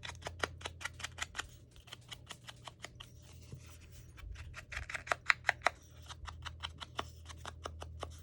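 Small scissors snipping through paper in quick short cuts, about four or five snips a second, with a few louder snips about five seconds in.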